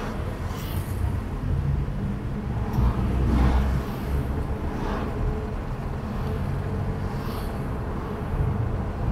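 City road traffic noise while driving: a steady low rumble of engines and tyres, swelling louder briefly about three seconds in.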